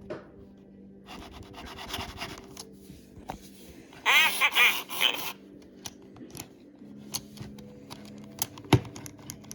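Handling of toy packaging: rustling, scraping and small clicks. About four seconds in comes a loud, high-pitched warbling sound lasting about a second, and near the end a single sharp knock.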